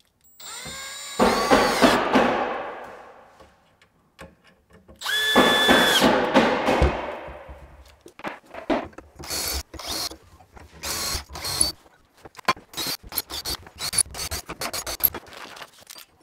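Cordless drill running in two bursts of a couple of seconds each, drilling or driving screws for cabinet door pulls in a wooden cabinet door, each burst winding down as it stops. After that comes a string of light clicks and knocks from handling the hardware and tool.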